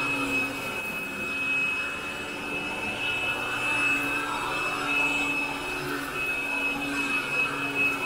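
Hoover Air Lift Light upright vacuum cleaner running steadily as it is pushed over carpet, with a steady high whine.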